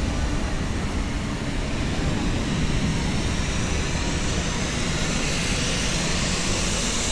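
Steady low rumbling noise with a hiss that grows louder near the end.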